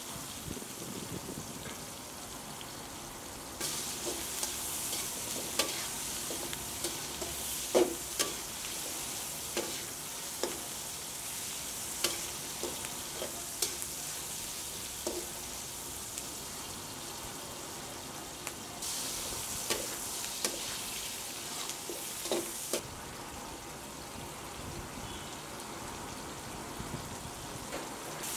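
Sliced onions and whole tomatoes sizzling in hot oil in an aluminium kadai, stirred with a spatula, with sharp clinks of the spatula against the pan every second or two.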